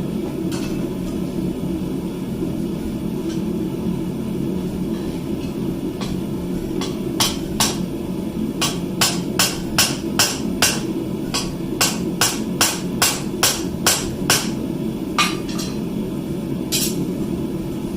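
Blacksmith's hammer striking steel on an anvil: a quick run of about twenty blows, two or three a second, starting about seven seconds in and ending with a couple of spaced strikes, over a steady low rumble.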